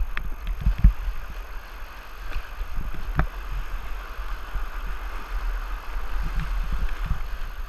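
Fast river rapids rushing and splashing around a whitewater kayak as it crosses the current, over a steady low rumble. A few sharp knocks come in the first few seconds.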